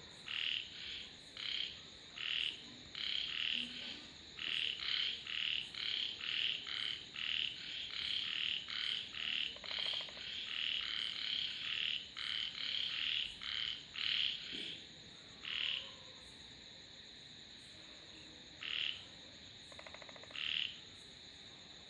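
A chorus of frogs croaking: many short, high calls following each other rapidly, thinning out to a few scattered calls over the last third. Twice, a buzzy, rapidly pulsing call from another frog joins in. A steady high-pitched whine sits underneath.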